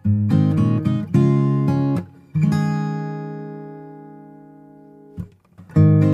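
Background music: acoustic guitar strumming chords. About midway a chord is left ringing and slowly fades for roughly three seconds before the strumming picks up again near the end.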